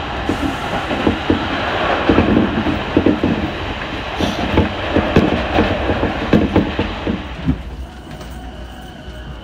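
Ride noise inside a moving train carriage: a steady rumble of wheels on the track with irregular clacks over rail joints. It eases to a quieter rumble near the end.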